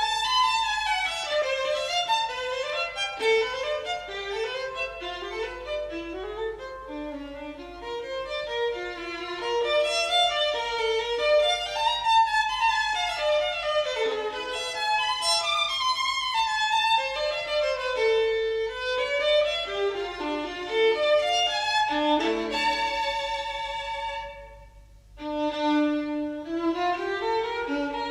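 Violin music: a melody of changing notes, with a short pause between phrases about 25 seconds in.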